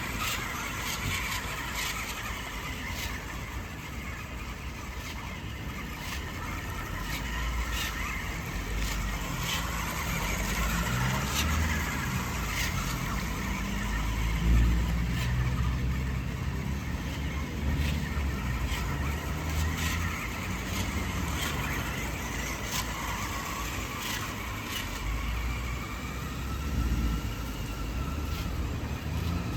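Small remote-control toy monster truck running, its motor and gears whining in a pitch that rises and falls with the throttle, over a low rumble and scattered clicks.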